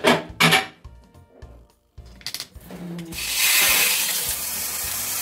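A few knocks and clicks, then a shower head starts spraying water about three seconds in and runs on steadily.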